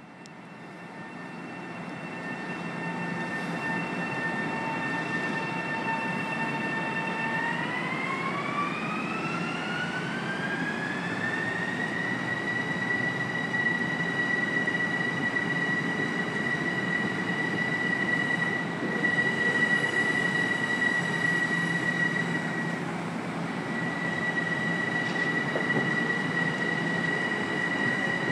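Long Island Rail Road M7 electric multiple-unit train pulling out: its traction motor whine holds a steady pitch, rises smoothly as the train gathers speed about a third of the way in, then holds a high steady note over the rumble of the cars.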